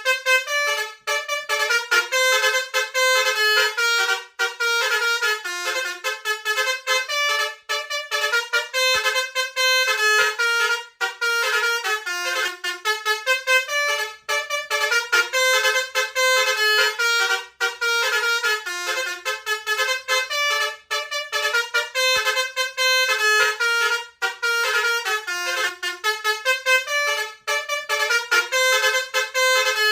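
Multi-tone telolet bus horn playing a fast melody of short notes that step up and down without pause.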